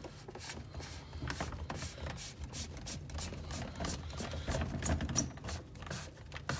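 Plastic filter housing bowl of a reverse-osmosis system being screwed onto its cap by hand, with the carbon cartridge inside: a continuous run of irregular clicks and scraping from the threads.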